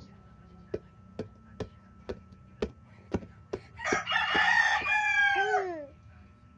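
Light taps of a ball being played with, a little over two a second, then an animal's loud drawn-out call, rough at first and falling in pitch at the end.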